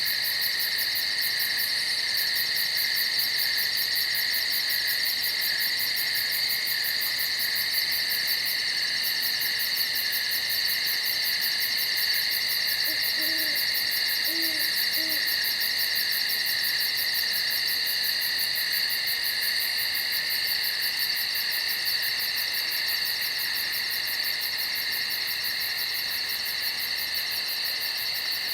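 Steady chorus of night insects, a dense high buzzing with a fast pulsing trill on top. About halfway through, an owl gives three soft, low hoots.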